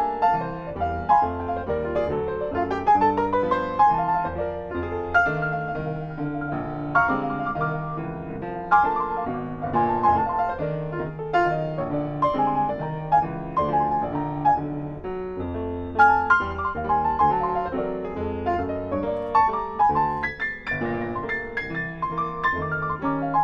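Solo grand piano playing over a steady bass line, with a climbing run of notes a few seconds in.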